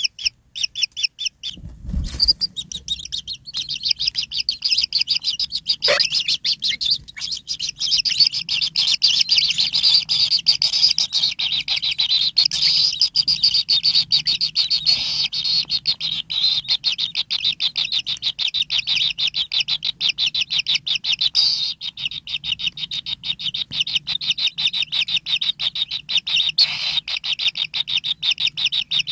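White-throated kingfisher nestlings giving a rapid, unbroken run of high begging chirps in their nest burrow. A single low thump comes about two seconds in, as the calling starts after a short pause.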